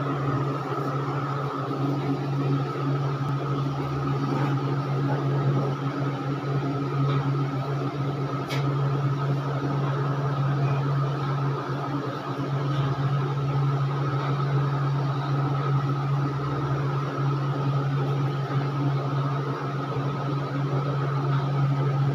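A steady machine hum with several fixed tones, like a running motor, unchanging in level; a faint click about eight seconds in.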